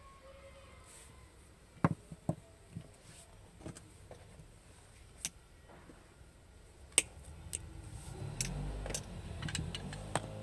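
Scattered sharp clicks and light knocks from hand tools and a thin electrical cable being handled, with pliers working the cut end of the wire. A low rumble builds in the last couple of seconds.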